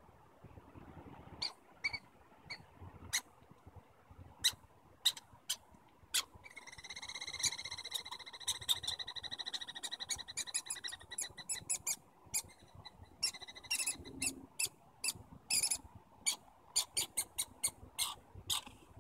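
Squirrels calling: sharp single chirps scattered through, and from about six seconds in a long, fast rattling trill lasting some six seconds, followed by quick runs of chirps.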